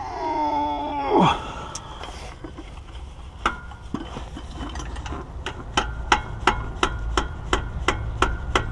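A wrench tightening a plug on a Toyota Coaster's manual gearbox. It opens with a short creaking squeal, then from about three seconds in gives sharp metallic clicks, roughly three a second.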